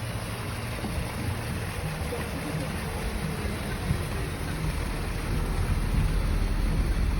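Vehicle engine running at idle: a low, steady rumble that swells slightly near the end.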